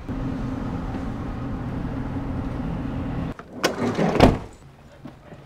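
A motor vehicle running with a steady low hum, cut off abruptly a little over three seconds in. About half a second later comes a brief loud clatter.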